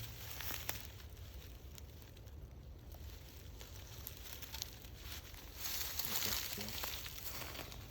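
Dry leaf litter and undergrowth rustling and crackling, with a louder stretch of rustling for about a second and a half past the middle.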